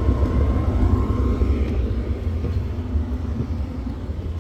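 RV furnace running just after kicking on: a steady low rumble of the blower and burner that slowly gets quieter.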